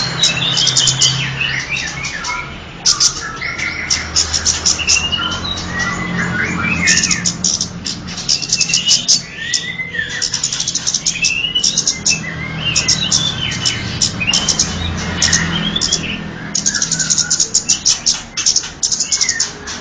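Kemade bird lure recording: fast runs of sharp, high-pitched chirps alternating with shorter warbling phrases that rise and fall, repeating over and over.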